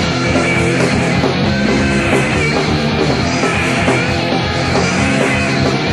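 Punk rock band playing an instrumental stretch between sung lines: electric guitars, bass and drums, steady and loud.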